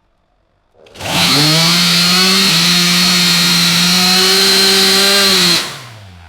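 Gas-powered chainsaw, quiet at first, is revved up sharply to high speed about a second in. It holds there at a steady pitch for about four and a half seconds, then the throttle is let off near the end and it falls back to a low idle.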